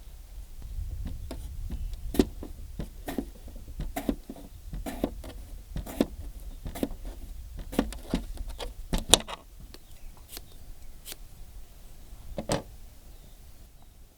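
A series of sharp knocks or clicks, irregular, about one or two a second, thinning out after about nine seconds, over a steady low rumble.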